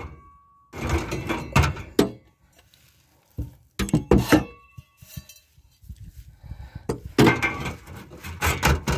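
Metal clanks and thunks in three irregular bursts as an exhaust pipe is worked into the sleeve of a replacement intermediate muffler.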